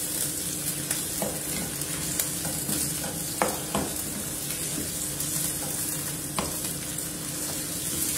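Raw bone-in chicken sizzling in hot ghee with onions in a karahi as it is stirred and turned with a spatula, which scrapes and knocks against the pan a few times.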